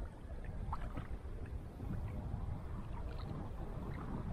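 Steady low rumbling noise with a few faint clicks and knocks.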